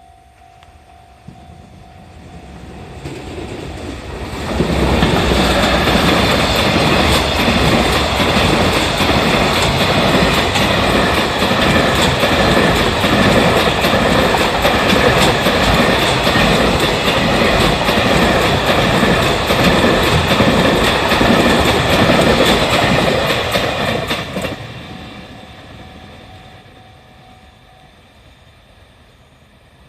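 A JR Freight EF210 electric locomotive hauling a container freight train passes by. The sound builds over a few seconds and stays loud for about twenty seconds with a continuous clickety-clack of wheels over the rails. It then fades away over a few seconds.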